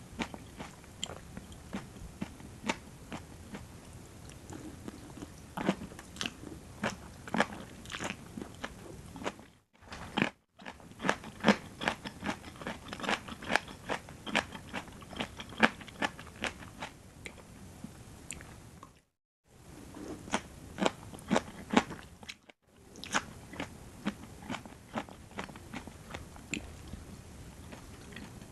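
Close-miked biting and chewing of a rice noodle and raw vegetable salad, with crisp crunches coming in quick runs. The sound drops out briefly three times.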